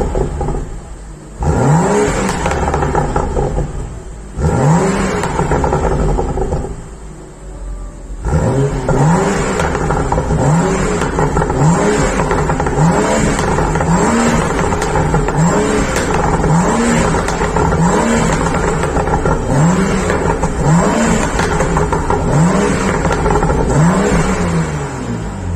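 BMW M235i's turbocharged 3.0-litre straight-six on its original exhaust, revved in quick blips that each rise and fall straight back. The blips are spaced out at first and come about once a second from a third of the way in. Pops and crackles sound as the revs drop.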